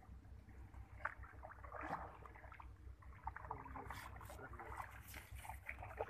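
Small wooden boat being poled through shallow wetland water: quiet, irregular splashes, drips and knocks against the hull.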